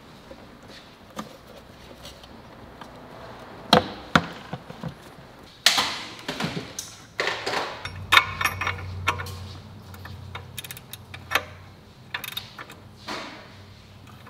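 Scattered clicks and knocks of hand tools and metal parts being handled while a downpipe is fitted in a Honda Civic Si engine bay, with a socket on an extension working a fitting. A low steady hum comes in about eight seconds in.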